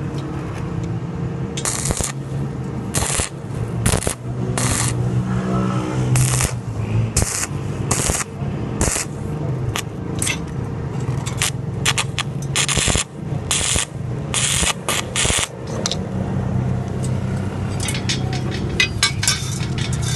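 Electric arc welder tack-welding iron: many short bursts of arc crackle and hiss, some in quick runs, over the welding machine's steady mains hum.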